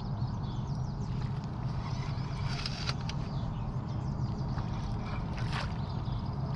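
A steady low rumble with water sloshing and two brief splashes, about two and a half seconds in and again about five and a half seconds in, as a hooked fish is played at the surface close to the angler's legs.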